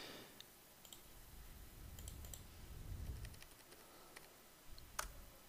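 Faint computer keyboard and mouse clicks: a handful of light key taps spread over the first three seconds, then one sharper click about five seconds in.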